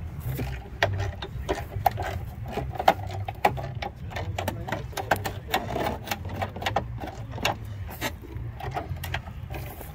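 Hand tools clicking and tapping irregularly on the bus's old metal body trim as rusted trim screws are worked loose, over a steady low hum.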